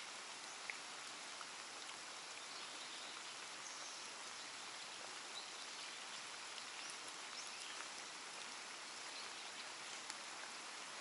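Light rain falling: a steady soft hiss with faint scattered ticks.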